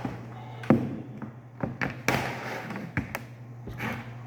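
Scattered knocks and taps at irregular moments, the sharpest about a second in: a computer keyboard being handled and set down on a desk. A steady low hum runs underneath.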